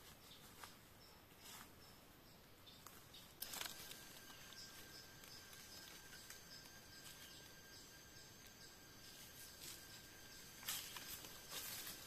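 Faint rustling and crackling of footsteps through leaf litter and undergrowth, with a sharp click about three and a half seconds in and a faint steady high tone for several seconds after it; the rustling grows louder near the end.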